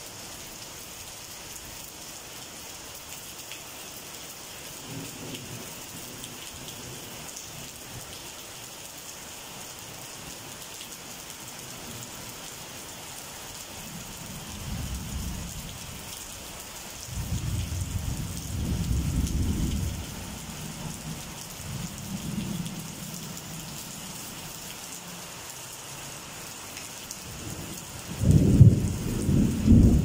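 Steady rain falling, with rolling thunder: low rumbles swell about halfway through, and a louder, sharper peal breaks in near the end.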